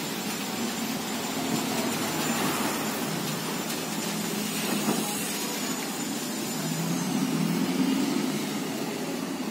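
Motor vehicle engine running steadily under road noise, growing somewhat louder about seven seconds in.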